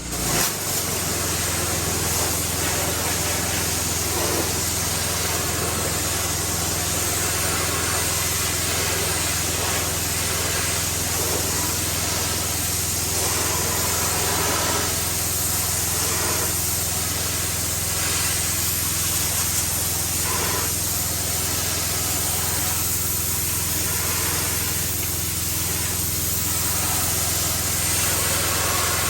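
A roughly 20-year-old pressure washer running steadily, its motor humming low under the even hiss of the high-pressure water spray.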